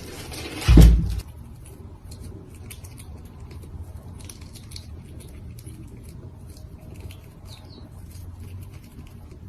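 A loud dull thump about a second in, followed by faint, scattered light taps and rustling.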